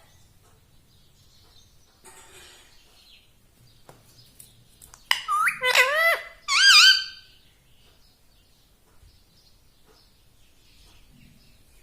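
Indian ringneck parakeet's high-pitched calls: a short run of sweeping, rising-and-falling notes about five seconds in, with quiet between.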